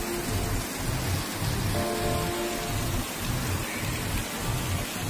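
Wind buffeting the camera microphone outdoors: a steady hiss with irregular low rumbling gusts.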